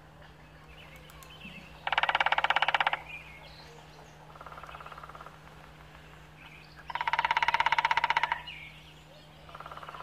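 Woodpecker drumming on wood: two loud, fast drum rolls of about a second each, some five seconds apart, with a fainter, shorter roll after each. Faint bird chirps sound in the background.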